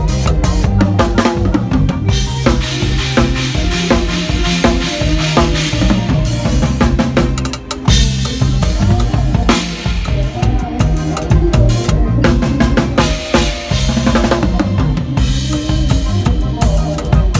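Thai lam phloen band music: a drum kit keeps a steady beat with bass drum and snare over a bass line and melodic instruments.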